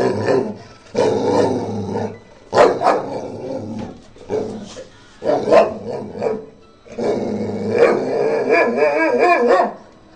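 Boxer dog vocalizing back at its owner in a series of drawn-out grumbling bouts with short gaps between them. The longest bout comes near the end, and its pitch wavers up and down.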